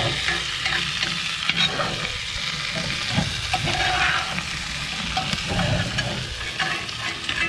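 Hot butter, rosemary and garlic sizzling in a cast-iron skillet as seared venison is basted, with a metal spoon scraping and clinking against the pan in scattered strokes.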